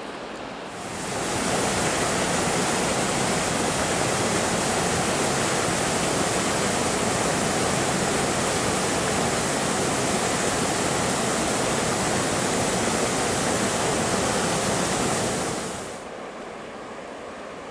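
Water rushing steadily over a small river cascade, an even hiss-like roar that starts about a second in and drops away sharply near the end.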